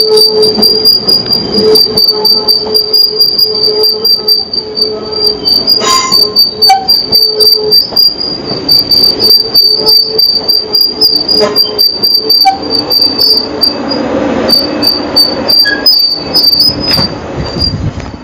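South Western Railway electric multiple unit rolling slowly along the curved platform road, its wheels giving a steady high-pitched squeal on the curve with rapid ticking over it. The squeal fades out near the end as the last car passes.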